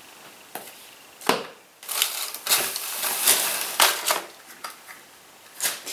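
Product packaging rustling and crinkling as items are handled and taken out of a box, with a few short knocks. The crinkling is densest in the middle.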